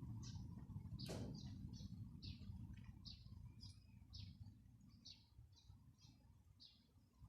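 A small bird chirping over and over, short high chirps about twice a second, growing fainter toward the end. One sharp tap about a second in, over a low rumble.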